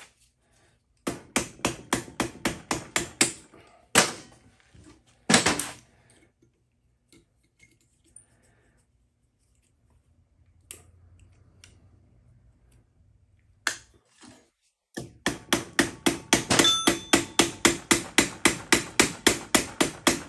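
Hammer blows on the rear axle of a Honda XL70 minibike, which is stuck and will not drive out. A quick run of taps, two heavier blows, a pause, then a long fast string of strikes at about five a second from about 15 seconds in.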